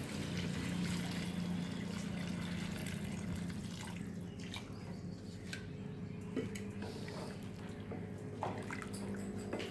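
Water poured from a jug into a kadai of frying potatoes, a steady splashing pour that ends about four seconds in. A few light knocks follow as the curry is stirred with a wooden spatula.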